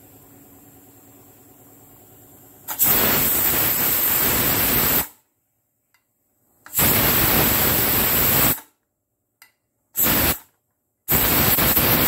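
Pigeon aluminium pressure cooker venting steam through its lifted whistle weight: four loud bursts of hiss, the third brief, each cut off sharply as the weight drops back onto the vent. The steam pressure is being let out by hand with a spoon.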